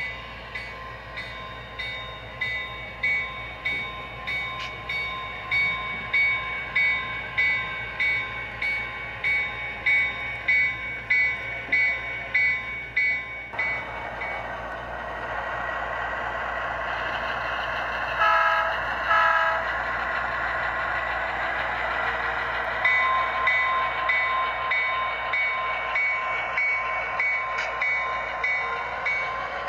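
Sound decoder (DCC sound) in an HO-scale Southern Pacific diesel switcher model, playing through its small onboard speaker. The locomotive bell rings at about two strikes a second, then stops about halfway while the diesel engine sound grows. Two short horn blasts follow, and the bell rings again near the end.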